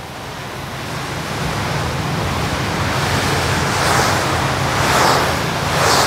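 Pressure washer wand blasting a jet of water onto concrete pavement to rinse it: a steady hiss of spray growing louder, swelling in surges near the end, over a steady low hum.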